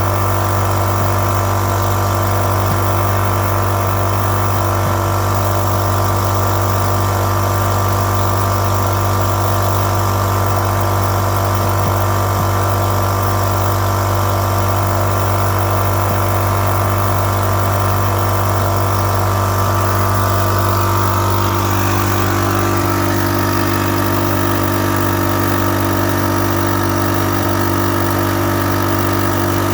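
Microlite 2800 portable generator's engine running at a steady speed, its pitch dipping slightly and its tone changing about two-thirds of the way through. This unit surges and then dies after about two minutes of running.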